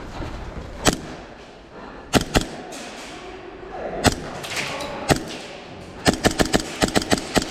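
Airsoft guns firing: sharp cracks, first single shots spaced a second or so apart, then a rapid string of about ten shots in under a second and a half near the end.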